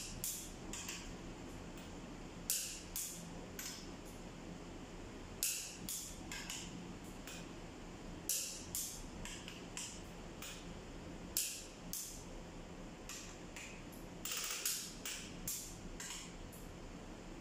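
Torque wrench on the cylinder head bolts of a Toyota 13Z diesel engine, clicking and ratcheting as the bolts are tightened to 120 N·m. The sharp clicks come in clusters of two or three every two to three seconds.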